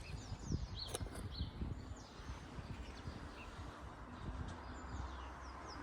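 Small songbirds chirping in repeated short, high calls, over a low uneven rumble.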